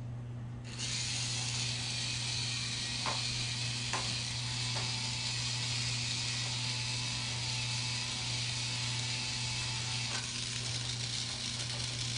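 Small battery-powered drill running steadily as it drives out a screw, a whirring hiss with a few clicks.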